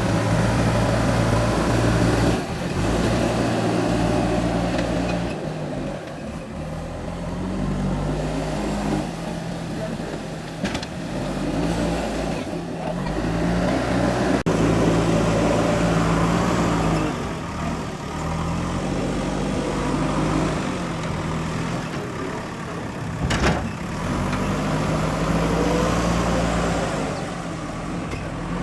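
Diesel engine of a JCB 3DX Super backhoe loader working, its engine speed rising and falling over and over as the machine digs and loads soil. A couple of sharp knocks, the louder near the end.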